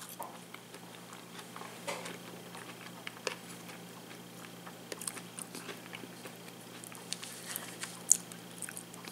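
A man chewing a mouthful of eggplant parmesan with his mouth close to the microphone: faint, scattered wet mouth clicks and smacks.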